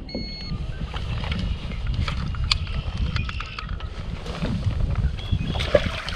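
Wind rumbling on the microphone and small waves lapping at a boat's hull, with clicks and knocks of the fish being handled and a brief beep at the start. Near the end comes a splash as a largemouth bass is dropped back into the lake.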